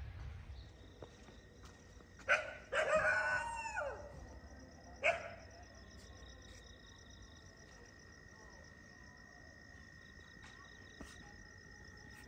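A domestic animal calling: a short sharp call, then a longer call of about a second that rises and falls in pitch, then another short call.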